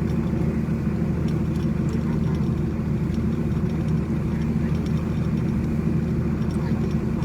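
A heavy engine running steadily at a constant speed, a low even hum that does not change in pitch.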